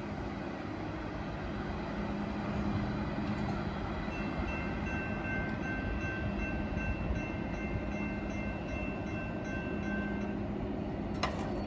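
Railroad crossing bell starts ringing about four seconds in as the crossing gates rise, and stops shortly before the end once they are up. It sounds over the steady rumble of a work train rolling away on the tracks.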